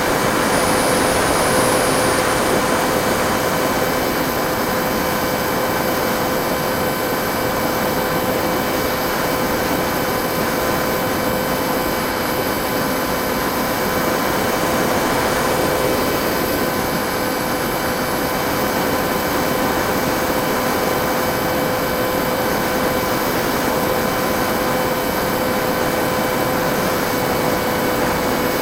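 A Bixler 1.1 RC plane's NTM 2200kv brushless electric motor and propeller running at steady throttle in flight: a constant whine over rushing air noise, a little louder in the first few seconds.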